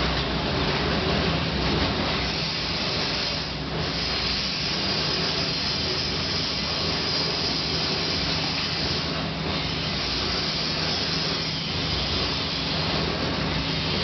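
Tilting metal-melting furnace running: a steady, loud rushing hiss with a low hum underneath, level throughout.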